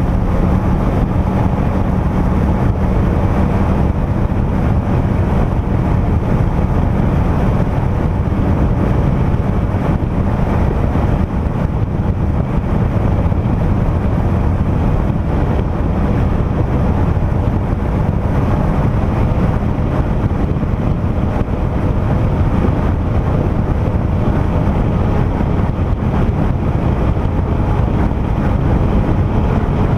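Yamaha FX SVHO jet ski running flat out at about 40 to 50 mph: a steady engine and jet-pump drone mixed with rushing water and wind buffeting the microphone.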